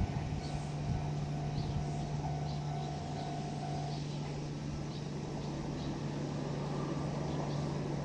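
Nankai 6000 series electric commuter train pulling away from the platform: rumbling running noise with a steady low hum, and a higher steady tone that stops about halfway through.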